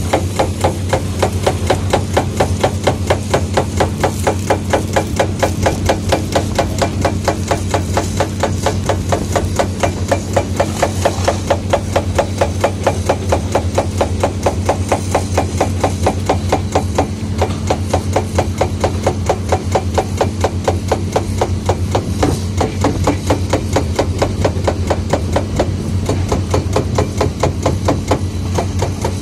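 Diesel engine running at a steady speed, with a low hum under an even, rapid knocking beat of several knocks a second.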